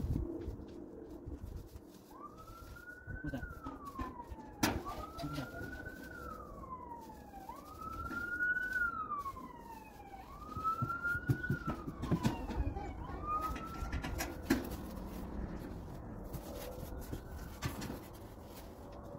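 A siren wailing, going up and down in pitch through five slow cycles of about two and a half seconds each, then fading out. There are a few sharp knocks in the background.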